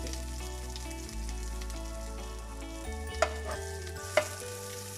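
Chopped garlic frying in a little oil in a cast-iron frying pan, stirred with a steel spatula that clicks sharply against the pan twice near the end.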